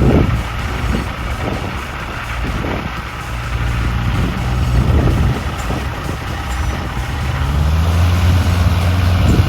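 Engine of a Flying Legend Tucano replica light aircraft running steadily, then speeding up, its pitch rising and getting louder over the last two seconds.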